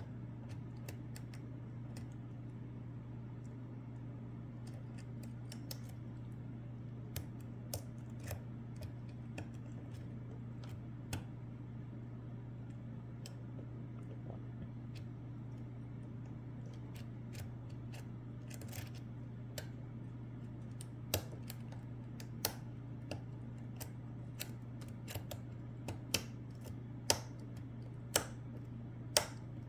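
Small sharp clicks and taps of a lock pick setting the pins in a Lockwood Twin lock cylinder under very light tension: sparse at first, then more frequent and louder in the second half. A steady low hum sits underneath.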